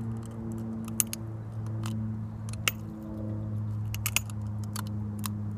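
Sharp clicks of metal on metal as a hook is worked out of a chain pickerel's mouth: half a dozen scattered snaps, two close together about four seconds in, over a steady low hum.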